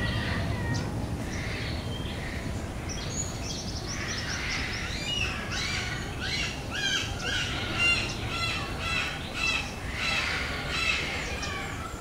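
Several birds chirping and calling at once: a busy mix of short, repeated chirps and harsher calls that thickens about a third of the way in, over a low steady background rumble.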